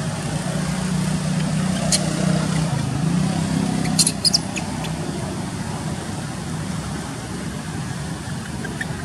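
Steady low hum of an idling vehicle engine, with a few short, high squeaks about four seconds in.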